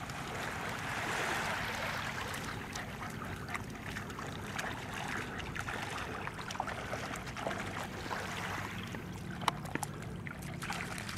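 Shallow seawater splashing around the paws of wading Dandie Dinmont terriers: many small, sharp splashes over a steady wash of water.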